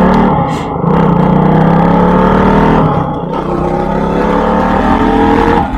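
Motorcycle engine running while being ridden, its pitch rising steadily as it accelerates through the second half, with low wind rumble underneath.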